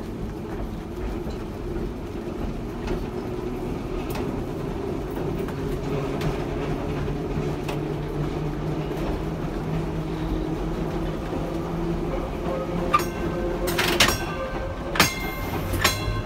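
Electric trolley car running along the track: a steady hum from the traction motors and gearing over wheel-on-rail rumble. Near the end come a few sharp metallic clanks that ring briefly.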